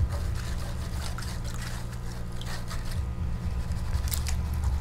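Water sloshing and trickling in a tub as a plastic Gold Claw gold pan is shaken back and forth under the surface to classify dirt, with scattered small splashes and drips over a steady low hum.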